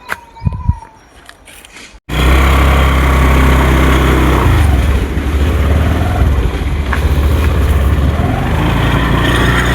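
About two seconds in, the sound cuts abruptly to a motorcycle engine running steadily while being ridden, with heavy wind noise on the microphone.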